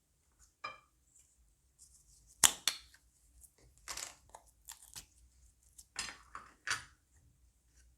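Crunchy slime being squeezed and mixed by hand, giving irregular crackles and pops, the loudest about two and a half seconds in.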